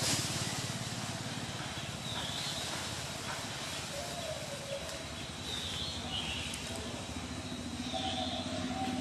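Steady outdoor background noise, with a short high-pitched call repeating about every two seconds.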